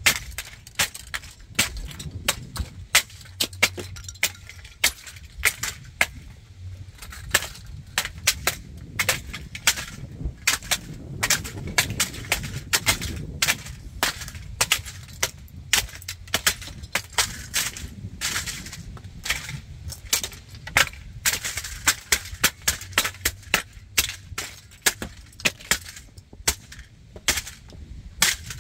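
A die-cast and plastic model tanker truck being crushed under high heels on concrete: many irregular sharp cracks, snaps and metallic clinks, several a second, as the pieces break and scrape on the concrete.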